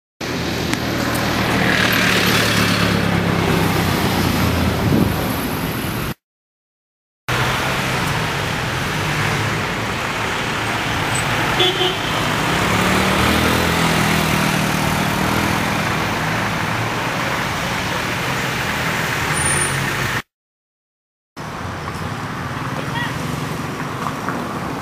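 Road traffic: cars running past on a street, with steady engine and tyre noise. One engine's hum rises in pitch about twelve seconds in as it passes. The sound cuts out abruptly to silence twice, for about a second each time, about six and twenty seconds in.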